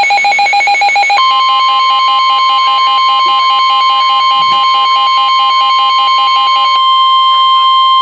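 NOAA Weather Radio warning alert: a rapid pulsing electronic beep, joined about a second in by the steady single-pitch warning alarm tone. The pulsing stops near the end and the steady alarm tone continues alone, the signal that a warning message is about to be read.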